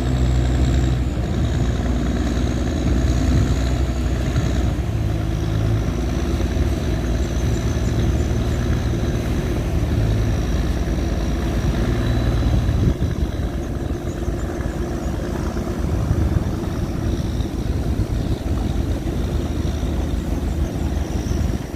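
Tugboat engine running steadily under load, a low, even drone.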